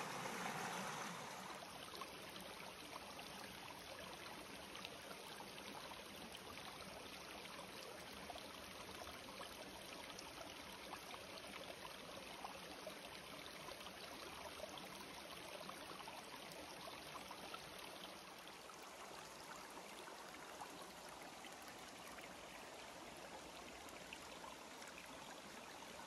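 Faint, steady rush of running water, like a stream, with no pitch or rhythm.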